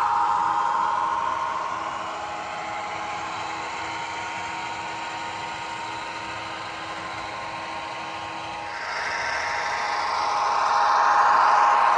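HO-scale model train running on the layout, its locomotive's motor and gears giving a steady whir. It is softer in the middle and swells louder about nine seconds in as the locomotive passes close.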